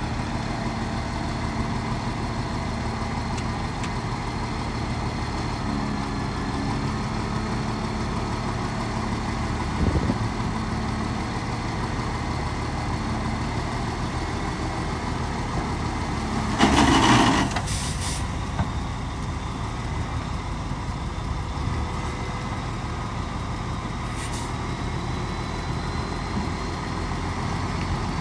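Heavy diesel engine of earthmoving or truck machinery running steadily. There is a knock about ten seconds in, a loud burst of hiss a little past halfway, and two shorter hisses after it.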